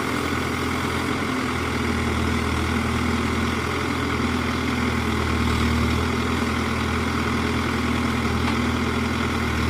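Diesel engine of a Case 770EX backhoe loader running steadily. Its low hum swells a little in the middle.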